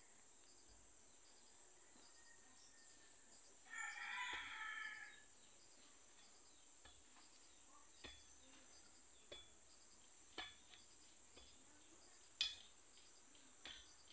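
A rooster crows once, about four seconds in. From the middle on come short dull knocks about a second apart, the loudest near the end, as a long digging pole is jabbed into the soil.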